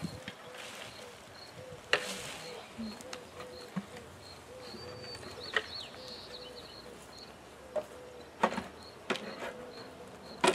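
A few sharp knocks of wooden hive boxes and cinder blocks being handled and set down, over a faint insect chirp repeating about three times a second.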